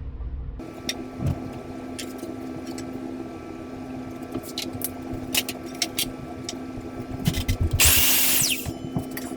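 Power saw motor running with a steady hum, with scattered clicks and knocks of boards being handled, then a brief loud high-pitched cut through a wood board about eight seconds in.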